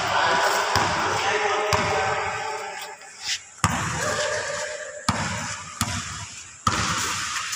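Basketball bouncing on a concrete court: about half a dozen sharp thuds, irregularly spaced, over players' voices calling out.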